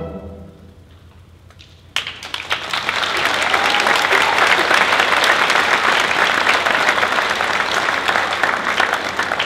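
The orchestra's last notes die away. About two seconds in, the audience starts applauding and keeps up steady, loud applause.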